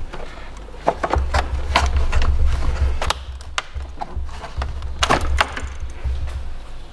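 Large plastic engine-bay trim panel of a Range Rover Sport being worked loose and pulled out past the engine, with irregular clicks, knocks and scrapes of hard plastic against surrounding parts.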